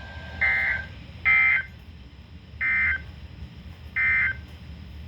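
Emergency Alert System end-of-message data bursts: four short, harsh digital squawks about a second apart, the first one quieter, marking the end of the severe thunderstorm warning broadcast.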